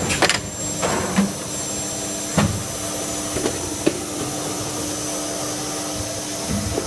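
Double-station extrusion blow moulding machine running with a steady hum and a constant low tone, broken by several sharp clacks from its moving parts in the first four seconds.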